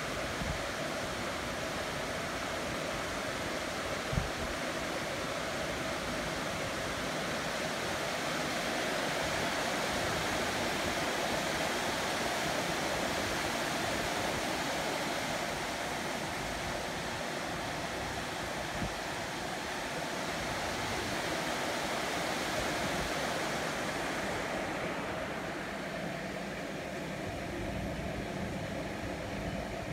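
Heavy rain falling steadily on a city, a continuous even hiss, with one sharp tick about four seconds in.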